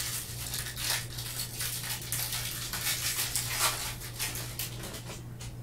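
Foil wrapper of a Panini Mosaic basketball card pack being torn open and crinkled by hands in nitrile gloves, an irregular crackling that thins out near the end.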